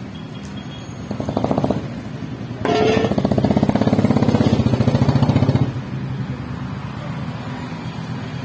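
A small engine running nearby with a steady hum, twice opening up into a louder, fast, even putter: briefly about a second in, then for about three seconds starting near the three-second mark.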